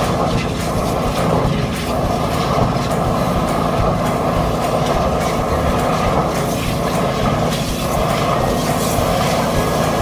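A high-pressure drain jetter running steadily as it jets a sewer pipe packed with toilet paper, mixed with wastewater gushing and splashing out of the pipe into the manhole as the blockage is pulled loose.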